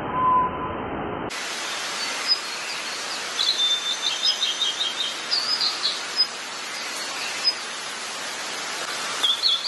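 Birds chirping over a steady outdoor hiss: short high calls throughout, with a quick run of repeated notes about three and a half seconds in. A short, louder tone sounds right at the start.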